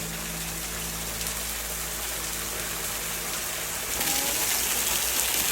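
Steady rush of water falling over a limestone waterfall, growing louder about four seconds in.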